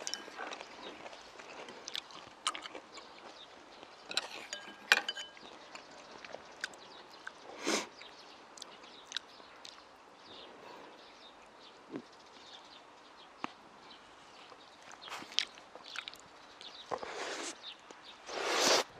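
Close-miked chewing and wet lip-smacking of stir-fried pepper and meat strips with soft steamed buns, with scattered sharp clicks of chopsticks. Near the end a louder, longer rush of noise comes as a big mouthful is drawn in.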